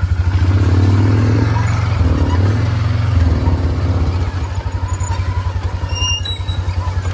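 Four-wheeler (ATV) engine running as the quad rides down a dirt trail. It gets quieter about three and a half seconds in and then runs on at a steady lower level.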